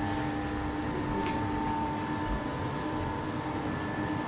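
Steady hum and whine of a workshop machine's motor running continuously, with a faint click about a second in.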